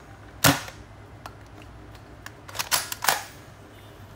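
Zuru X-Shot foam dart blaster firing once with a sharp snap about half a second in, then a few plastic clacks around the three-second mark as it is primed again for the next shot.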